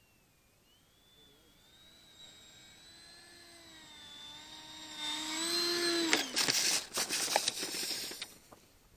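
The 12-blade 70 mm electric ducted fan of a Starmax F-5 model jet whines as it flies in low, growing louder, then cuts off about six seconds in as the model touches down. About two seconds of loud crunching and bumping follow as it lands on rough grass, where a tough tuft broke its right main landing gear.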